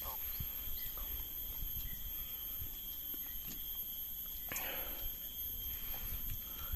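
Steady high-pitched insect drone, several even tones held without a break, with a few faint ticks and a short rustling swell about four and a half seconds in.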